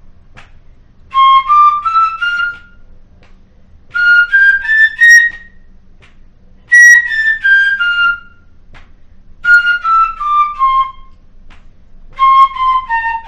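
Pífano, a side-blown Brazilian cane fife in C, playing a scale exercise in short groups of four separately tongued notes, each group followed by a pause of about a second. The first two groups climb and the next three step back down.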